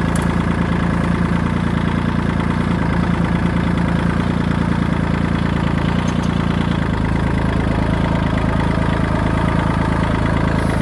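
Kubota L2501 tractor's three-cylinder diesel engine running steadily while the tractor carries a load of brush in its raised front-loader bucket. The engine note eases slightly about seven seconds in.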